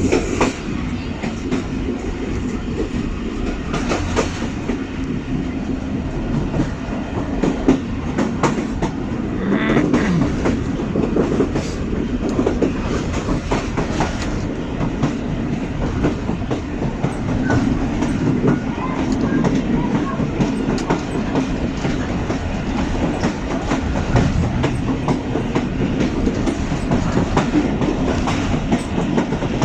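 Passenger train coach wheels rolling over the track: a steady rumble with a continual clickety-clack of knocks from the rail joints.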